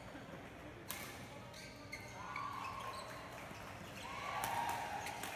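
Badminton rally: rackets strike the shuttlecock with sharp hits about a second in, again at about two seconds and a few more near the end. Between the hits, shoes give drawn-out squeaks on the court mat.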